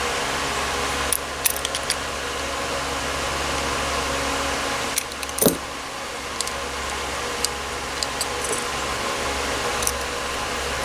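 Small metal carburetor parts, such as jets, clicking and clinking lightly as they are handled, a little louder about five seconds in, over a steady fan hum.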